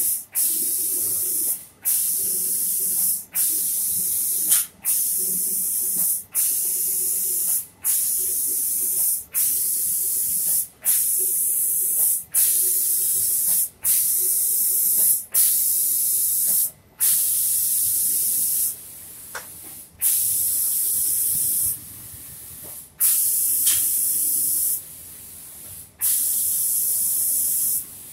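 Automatic spray gun of a cabinet-door painting machine spraying the finish coat: a loud, high hiss that cuts off briefly about every second and a half as the gun works in passes. In the second half some pauses last about a second, with a quieter hiss between sprays.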